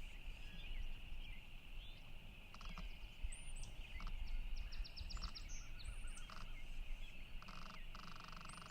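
Faint outdoor ambience: a steady, high-pitched chorus of calling animals, with several short bird chirps and a quick run of ticking notes about halfway through.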